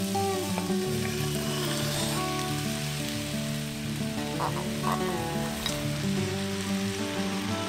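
Diced vegetables sizzling in a frying pan as chopped tomatoes are slid in off a wooden board, with green beans tipped in afterwards. The sizzle holds steady throughout.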